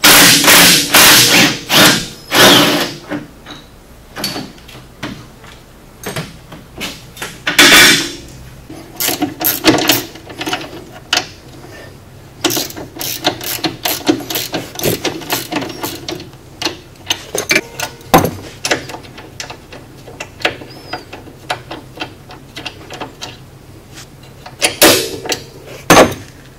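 Hand tools on the rear suspension of a side-by-side: a ratchet wrench clicking and metal parts clanking in irregular bursts, loudest at the start, about eight seconds in and near the end, over a faint steady hum.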